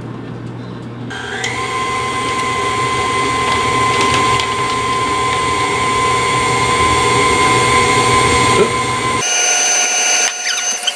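Electric stand mixer starting up about a second in and running steadily with a motor whine, beating powdered sugar into cream cheese frosting. About nine seconds in, the motor's tone changes as the speed is shifted.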